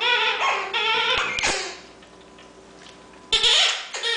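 Squeaky ball toy squeaking as a dog mouths and squeezes it. Several drawn-out squeaks come in the first second and a half, then a gap, then another squeak about three and a half seconds in.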